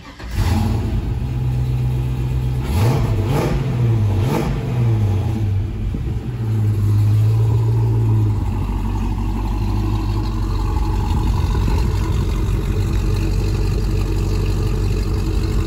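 A 1968 Camaro SS's LQ4 6.0-litre V8, breathing through Pypes Street Pro mufflers, starts up and catches at once. It is revved up and down a few times, holds a high idle, then settles to a steady lower idle about eight seconds in.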